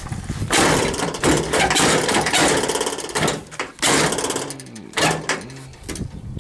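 An engine running loud and rough with a fast rattle, dropping away about three seconds in and again near five seconds.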